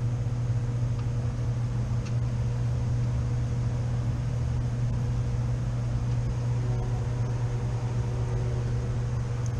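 Steady low hum of running rooftop HVAC equipment, with a faint click about two seconds in.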